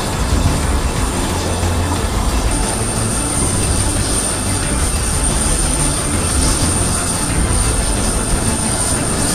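Jet turbine noise from a parked C-5 Galaxy transport aircraft running on the ramp: a loud, steady low rumble, joined about two and a half seconds in by a high, steady whine.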